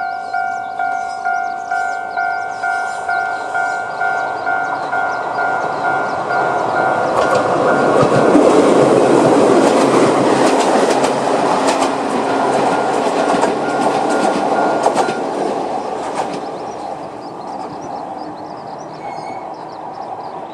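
Japanese level-crossing alarm ringing about twice a second, then a Toyama Chiho Railway 10030-series electric train passing over the crossing, its wheels clicking over the rail joints, loudest about halfway through. The alarm stops around three-quarters of the way in and the train noise fades away.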